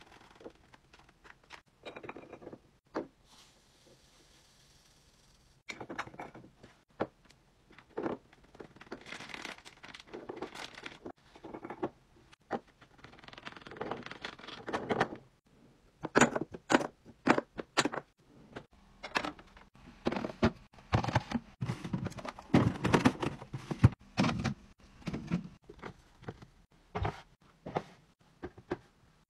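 Fridge restocking: a long run of sharp clicks and knocks as containers, jars and lids are set down and snapped shut on the shelves, with stretches of rustling in between.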